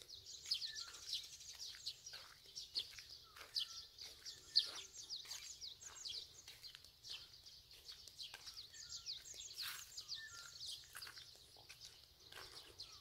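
Several small birds chirping at once: a steady stream of quick, high chirps that fall in pitch, several a second, with a few lower short whistled notes among them. Footsteps on a paved road sound underneath.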